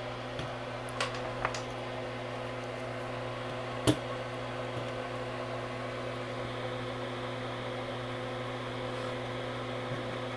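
Steady electrical hum of bench equipment running. A couple of light clicks come about a second in, and one sharper click about four seconds in.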